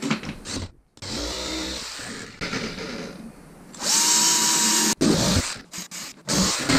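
Green Bosch cordless drill boring pilot holes through a plywood panel at the corners of a marked cut-out, heard in several short bursts. The loudest is a steady high motor whine about four seconds in.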